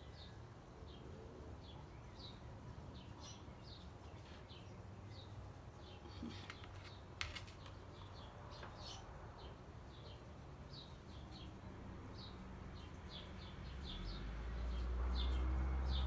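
Small birds chirping in the background, short high chirps repeating irregularly, often a couple a second. A single sharp click comes about seven seconds in, and a low rumble builds near the end.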